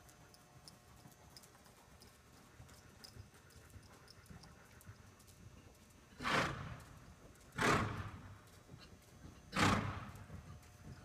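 A pony snorting three times, short loud blows about a second and a half to two seconds apart starting about six seconds in, over faint hoofbeats on soft arena footing.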